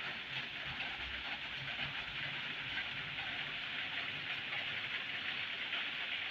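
A steady, even hiss with no speech and no distinct events.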